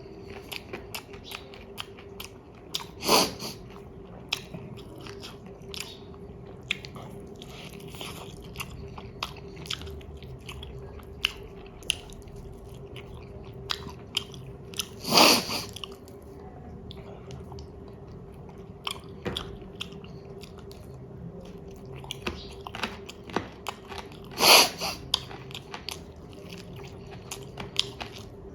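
Chewing and biting of chicken biryani, with many small wet clicks and crunches. Three louder short sounds stand out, about three seconds in, around the middle and near the end, over a faint steady hum.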